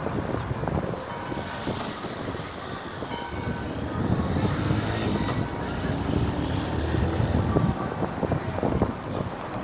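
City street traffic: cars and trucks running past as a steady rumble, swelling a little as a vehicle passes about halfway through.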